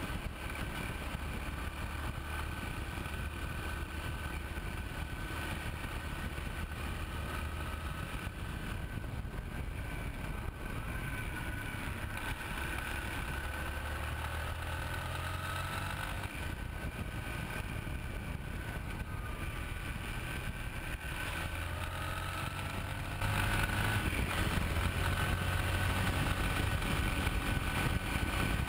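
Yamaha Ténéré 250 being ridden at road speed, heard from low beside the wheel: a steady rumble of tyre on asphalt and wind, with the single-cylinder engine running under it and its pitch slowly rising and falling. It gets louder a few seconds before the end.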